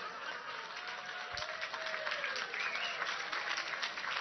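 An audience applauding: many hands clapping at once, the clapping growing denser about a second in.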